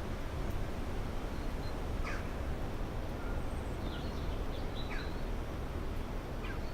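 Steady wind noise with a low rumble, and a few short bird chirps and calls scattered through it.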